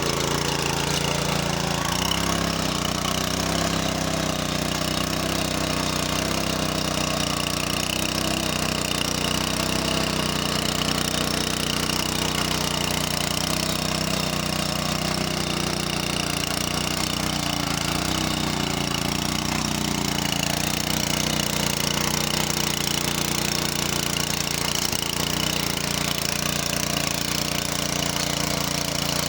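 Engine of a godi machine, a farm weeding and hoeing machine, running steadily under work.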